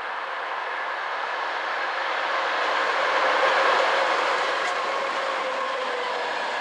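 ChS4 electric locomotive hauling a passenger train past at speed: rail and wheel noise growing to its loudest as the locomotive goes by, about three to four seconds in, then the passenger coaches rolling past. A steady hum runs through the noise.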